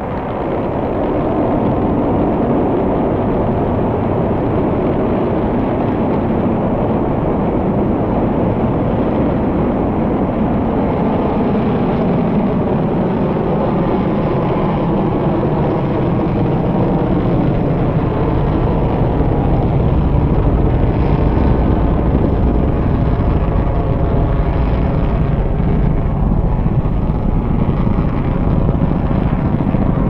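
Atlas-Agena rocket's engines firing at liftoff and through the climb: a loud, steady rumble that swells about a second in and grows deeper from about halfway on.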